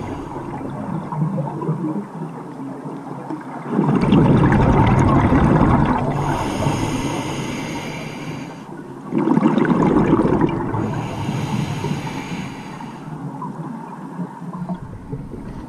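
Scuba diver breathing through a regulator underwater: hissing inhales alternate with two loud bursts of exhaled bubbles, about four and nine seconds in, each lasting around two seconds.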